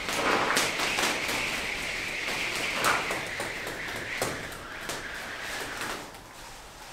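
Burning steel wool being spun for spark light painting: a steady hissing whoosh with several sharp snaps and crackles from the sparks, fading near the end.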